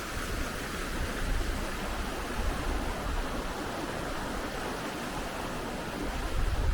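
A small hill stream flowing, a steady rush of running water with an uneven low rumble underneath.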